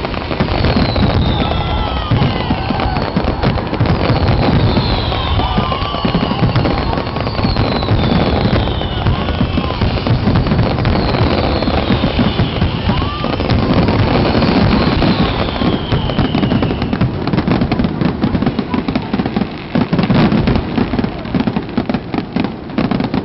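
Aerial fireworks finale: a dense, continuous barrage of shell bursts and crackle, with falling high whistles every couple of seconds. From about two-thirds of the way in, the whistles stop and rapid crackling takes over.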